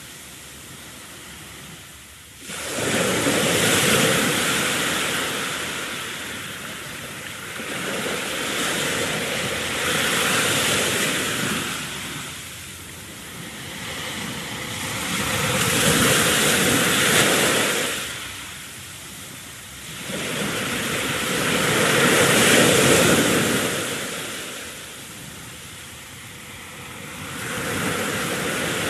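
Ocean waves washing onto a shore, a rushing noise that swells and fades about every six seconds, coming in suddenly louder about two seconds in.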